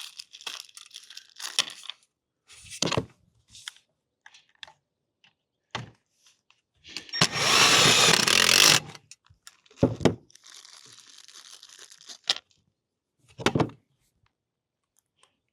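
Impact driver running in one burst of under two seconds near the middle, driving a self-tapping screw, with scattered clicks and knocks of tool and part handling around it.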